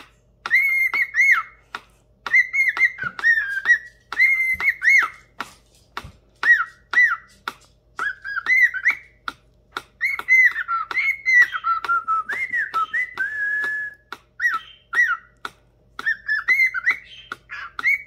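Cockatiel singing to its reflection: a run of short whistled phrases that glide up and down in pitch, with sharp clicks between the notes.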